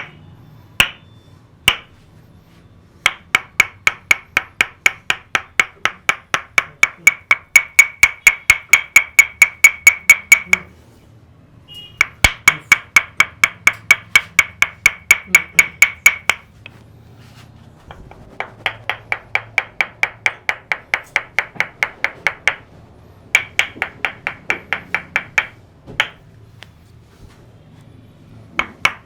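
Percussive head-massage tapping: hollow, ringing strikes at about four a second, in runs of several seconds broken by short pauses, with a few single strikes at the start and near the end.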